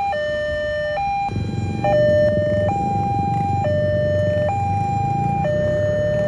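Railway level crossing's electronic warning alarm sounding a steady two-tone hi-lo signal, switching pitch roughly every second, the sign that the barriers are down and a train is coming. A low rumbling noise joins about a second in.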